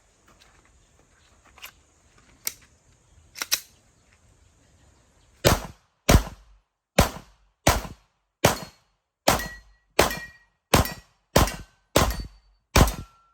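Glock 17 Gen 5 9mm pistol fired in a steady string of about eleven shots, roughly one every 0.7 seconds, starting about five seconds in. It is preceded by three fainter, spaced-out gunshots.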